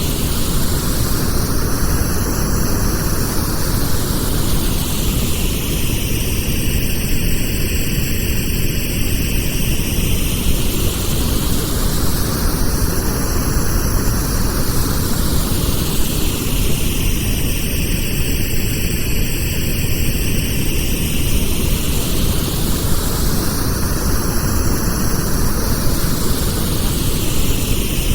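Synthetic pink noise, steady and unbroken, with a slow whooshing sweep in its tone that rises and falls about every eleven seconds.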